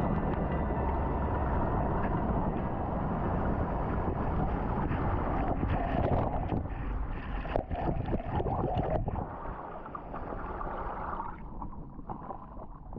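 Water sloshing and splashing around an action camera held at the water's surface, with wind buffeting the microphone: a steady rushing noise with scattered splashy crackles, dropping away about nine seconds in.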